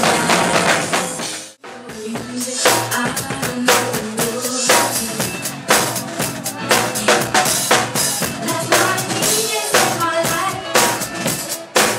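Drum kit played live over DJ-played dance music: rapid snare, bass-drum and cymbal hits. The sound drops out briefly about a second and a half in.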